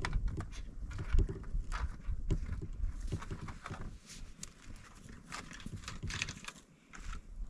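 Irregular crunches and scrapes as a stick pokes at a disposable aluminium-foil grill set on the snow and boots shift in the snow, with a low rumble over the first few seconds.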